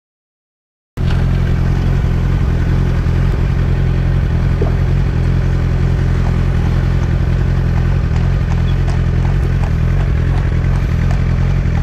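Quad bike engine running steadily while riding along the road, picked up by a camera mounted on the bike: a constant low engine drone. It cuts in suddenly about a second in, after silence.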